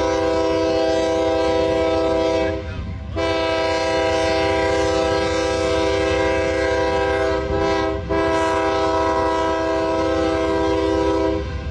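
Multi-chime air horn of a CSX freight locomotive sounding a chord in long blasts, broken by short gaps about three and eight seconds in, over a low rumble.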